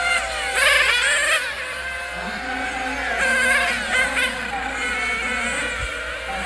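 Several nitro-powered radio-controlled race cars, their small two-stroke glow engines buzzing at high revs, rising and falling in pitch as they accelerate and brake around the track. One gets loudest about half a second to a second and a half in, and another around three to four seconds.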